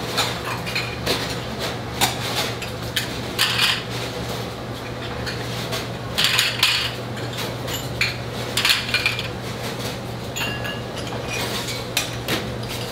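A butcher's knife scraping and cutting as beef rib meat is carved off the bone, with scattered metallic clinks and clatter. A steady low hum runs underneath.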